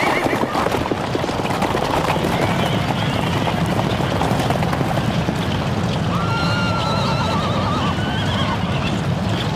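Many horses galloping in a cavalry charge: a dense, steady rumble of hooves, with a horse whinnying about six seconds in.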